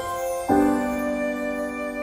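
Soft background music on piano or keyboard: a chord is struck about half a second in and held, ringing on.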